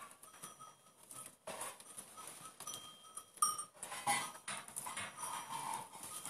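Goat calls, a few short ones, loudest about four to six seconds in, from a nanny goat and her newborn kids, with straw rustling as a wet newborn kid stirs.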